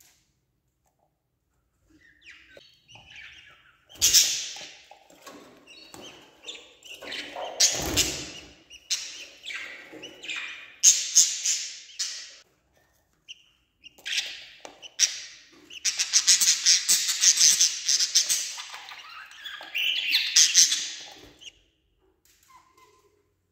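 Budgerigars giving harsh, rapid chirping and squawking calls in repeated bursts, some lasting several seconds, with a thump in the nest box about eight seconds in.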